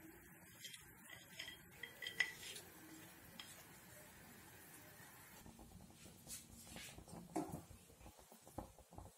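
Faint clinks and scrapes of a spoon on a ceramic plate as ground nuts are scraped off into a steel pan of milk, with one sharp clink about two seconds in; later a spatula stirs in the steel pan, with a run of quick small ticks.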